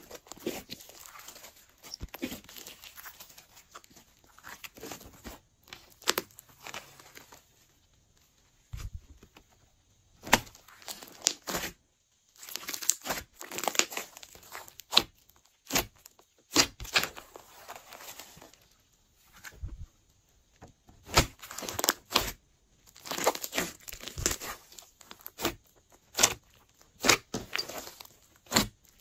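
Glossy slime being kneaded, folded and stretched by hand. It gives irregular bursts of sticky crackling and sharp clicks, with short quiet pauses between handfuls.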